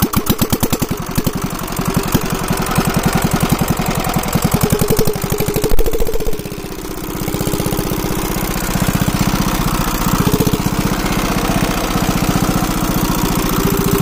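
Single-cylinder diesel engine of a shallow tube-well pump running with a fast, even chug. About six seconds in it gives a brief louder burst, then dips and settles into a steadier, deeper beat.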